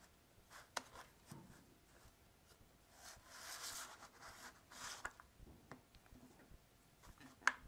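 Faint handling noise of a plastic Play-Doh toy head being worked by hands: soft rubbing and light clicks of plastic, with a scraping stretch about three seconds in and a sharper click near the end.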